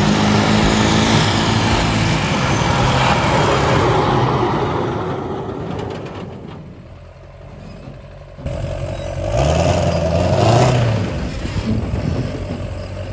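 Mud-truck engine running hard, fading away partway through and then revving back up with a rising pitch about two-thirds of the way in.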